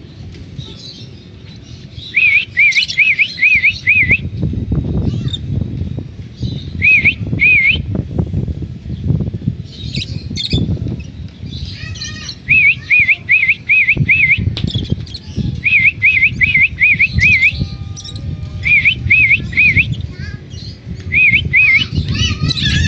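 African lovebirds chirping: short, high, clear chirps in quick runs of two to five, repeated every few seconds, over a low rumble.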